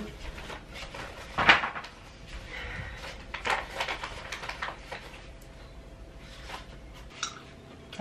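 Small clatters and rustles of food, packaging and utensils being handled on a wooden table, with one sharper knock about a second and a half in and a burst of rustling around three and a half seconds.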